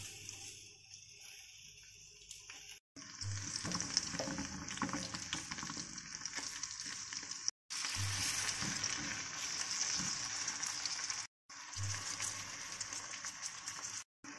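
Sliced onions and diced tomatoes sizzling in oil in a frying pan, with a spatula stirring them now and then. The sizzle cuts off briefly four times.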